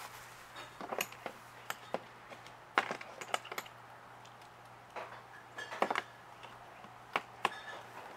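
Hand tools and small metal parts clicking and clinking against each other in irregular sharp knocks, several in quick succession about three seconds in and again around six seconds, over a faint steady hum.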